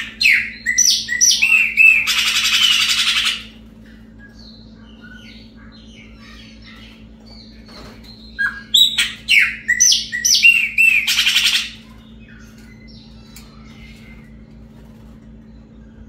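Chopi blackbird (pássaro-preto) singing two loud song phrases, each a run of clear, sharply sliding whistled notes ending in a harsh rasping burst; the second phrase comes about eight seconds in.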